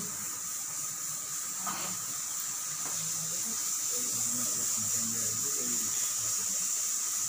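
A steady high-pitched hiss with a fainter steady tone beneath it, and faint low voices in the background.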